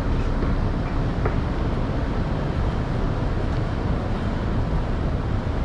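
Steady low rumble of a Mini Countryman car driving slowly through a crowded street, with the general hubbub of the street around it.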